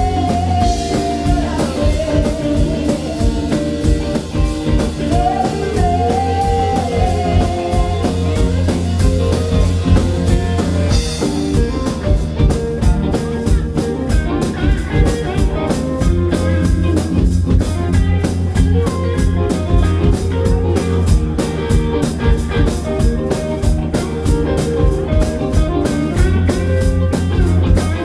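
Live blues-rock band playing: electric guitars and bass over a drum kit keeping a steady beat. A sliding lead melody stands out over roughly the first eight seconds.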